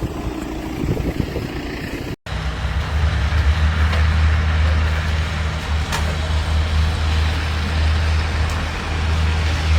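Motor vehicle engine running with a steady low drone under an even hiss of road and wind noise, after a brief cut about two seconds in.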